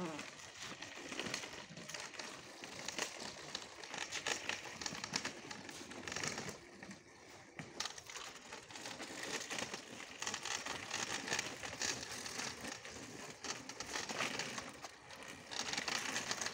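Irregular rustling and crackling handling noise from a handheld phone's microphone rubbing against hand or clothing while it is carried on a walk.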